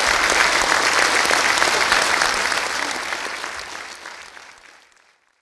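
Concert audience applauding with dense clapping, fading out from about three seconds in until it is gone shortly before the end.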